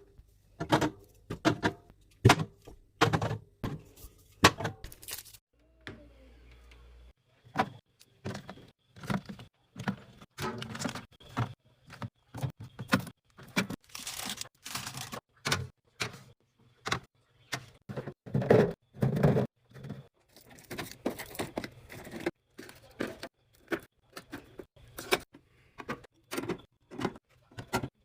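Rapid run of knocks, clicks and rustles as snack packets and drinks are handled and set down into a small fridge, several a second with a short pause about six seconds in.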